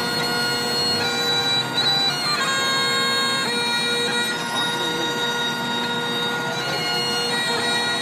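Music with a steady drone under a melody of long held notes that change every second or so, in the manner of bagpipes.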